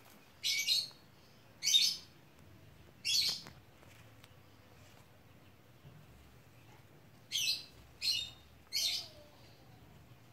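A bird calling in short, high chirps, three or four within the first three and a half seconds and three more close together near the end, with a pause of several seconds between the groups.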